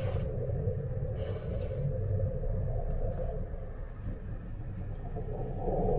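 Steady low rumble of a cruise ship under way in rough sea, heard from inside behind the window glass, with three brief swishes of the breaking bow wave.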